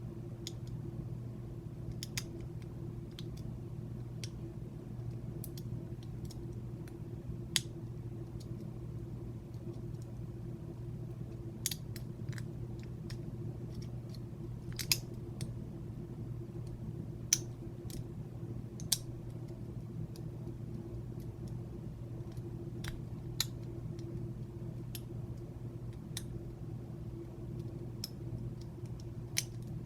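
Lock pick and tension wrench working the pins of a Master Lock Pro Series 6321 padlock: scattered, irregular sharp metallic clicks as pins are lifted and set, over a steady low hum.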